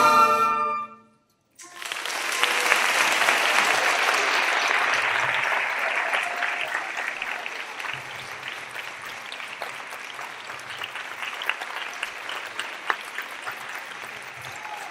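The band's last held chord stops about a second in; after a brief silence the audience applauds, loudest at first and slowly easing off.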